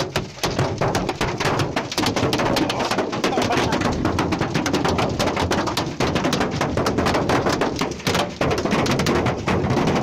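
Hailstones pelting a car's roof and windshield, heard from inside the cabin: a dense, continuous clatter of many hard impacts a second.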